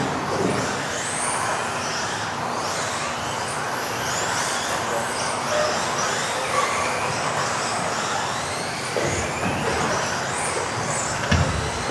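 Several electric RC off-road buggies racing, their motors whining up and down in pitch with the throttle over the hiss of tyres on the hall floor, the sound echoing around a large hall.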